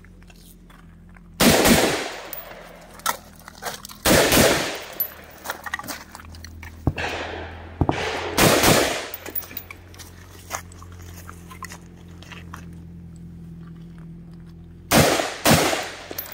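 Del-Ton Sierra 316 AR-15 rifle firing 5.56 rounds in quick groups of one to three shots, several seconds apart, each shot with a short echo. Faint clicks and a low steady hum between the groups.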